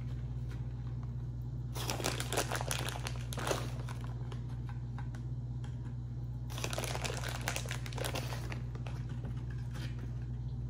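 Plastic bag of shredded cheese crinkling as cheese is pinched out and sprinkled into crispy taco shells, in two bouts, about two seconds in and again near seven seconds, over a steady low hum.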